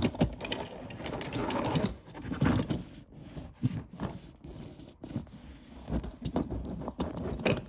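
Small diecast toy cars rolling and being handled on a hard surface: a rolling rattle in the first couple of seconds, then irregular sharp metal and plastic clicks and clacks.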